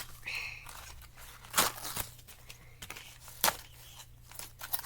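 Product packaging crinkling and tearing as a tape measure is worked out of it, with several sharp snaps, the loudest about a second and a half and three and a half seconds in.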